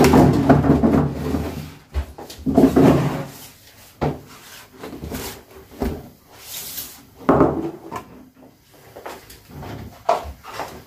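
Plastic basins and a plastic basket being picked up, moved and set down, with irregular knocks and clatters every couple of seconds.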